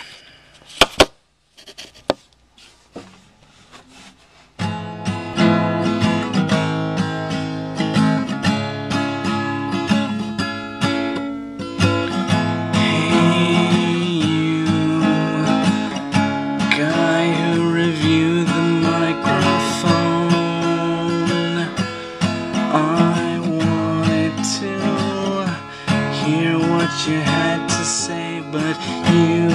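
A few sharp clicks and knocks, then from about four and a half seconds in, acoustic guitar music, strummed and plucked, playing on steadily.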